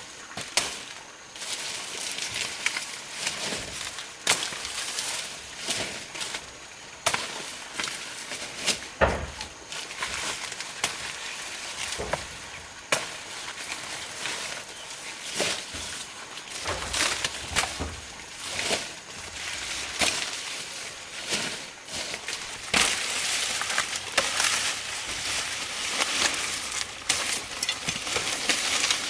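Irregular knocks and chops every second or two, with rustling and scraping in between, from hand work.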